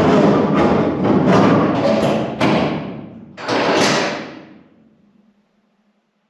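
Background music ending on a run of heavy percussive drum hits. A final hit about three and a half seconds in rings out and fades away.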